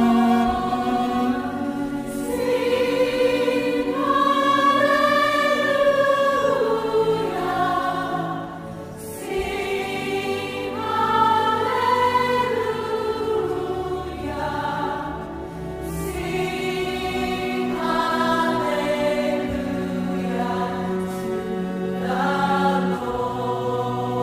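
Choir singing a slow, sustained sacred piece, with long held notes that rise and fall.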